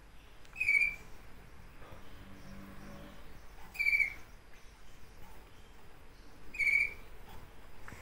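Common kestrel nestlings giving three short, high-pitched calls, about three seconds apart.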